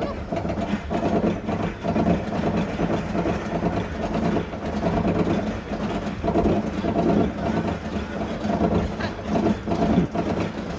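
Steel roller coaster train rumbling along its track, the rumble swelling and fading over and over, about once a second.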